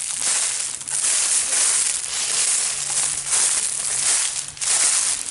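Footsteps crunching through dry leaf litter on a woodland floor, in loud uneven surges with short breaks between steps.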